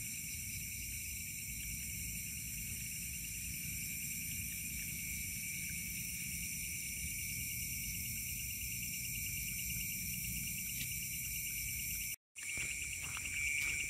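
Night insect chorus: crickets and other insects trilling steadily at several high pitches, over a low rumble. About twelve seconds in the sound drops out for a moment, then the chorus comes back louder and pulsing.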